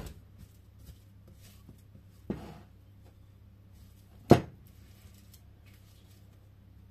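Silicone spatula scraping sticky cake batter out of a mixing bowl, with two sharp knocks about two seconds apart, the second the loudest.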